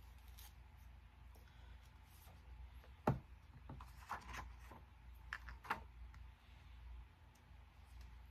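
A few scattered soft clicks and taps of small objects being handled on a desk, the loudest about three seconds in, over a low steady hum.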